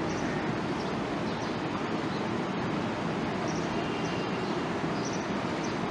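Steady rushing background noise, with a few faint, short high squeaks here and there.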